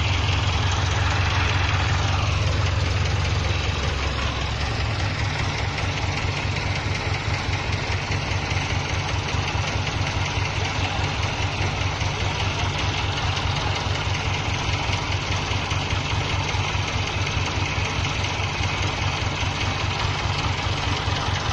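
Farm tractor's diesel engine running under tow, a little louder at first, then easing off about four seconds in to a steady, rapid low chugging.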